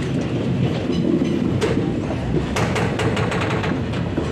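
Indian Railways passenger train running on the track, heard from aboard the moving coaches: a steady wheel-on-rail rumble, with a run of sharp clacks from the wheels crossing rail joints between about one and a half and three seconds in.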